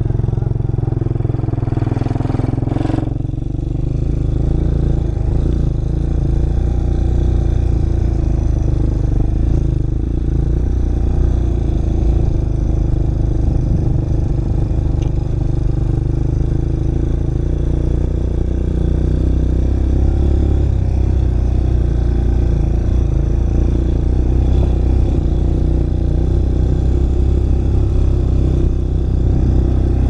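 ATV (four-wheeler) engine running steadily under way over a rough dirt and rock trail, with a short rush of noise ending in a sharp knock about two to three seconds in.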